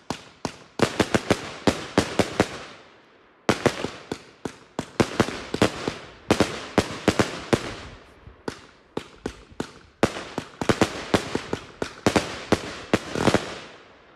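A 71-shot Fireart Hypnotic fireworks cake firing its shots: sharp bangs in rapid runs, each run trailing off in a fading hiss, with brief lulls about three and ten seconds in.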